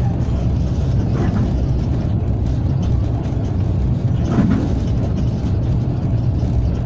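Steady running rumble inside the cab of a Czech class 163 electric locomotive travelling at speed, with a few faint knocks from the running gear.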